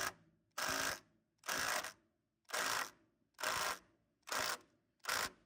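Power driver sinking a long screw through a rafter into hardwood in seven short pulls of the trigger, a rattling burst about every 0.8 s, each stopping dead.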